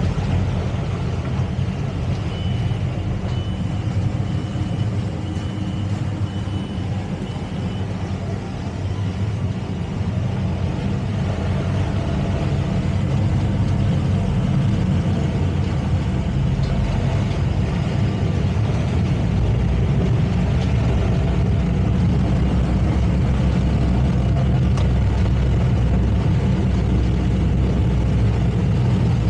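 Towboat's engines running steadily under way while towing a boat alongside; they grow a little heavier about two-thirds of the way through.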